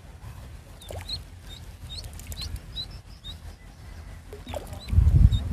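Live duckling bait peeping in short, repeated high chirps. A brief, loud low rumble comes in near the end.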